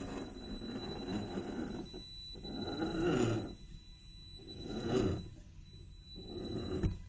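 Radio-controlled rock crawler's 550 brushed electric motor and geared drivetrain whining in three short bursts, each rising and then falling in pitch as the throttle is blipped.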